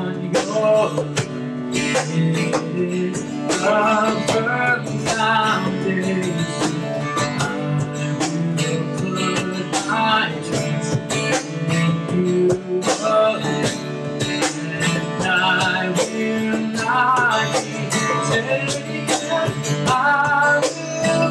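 Live acoustic song: a strummed acoustic guitar and a cajón keep a steady beat under male singing.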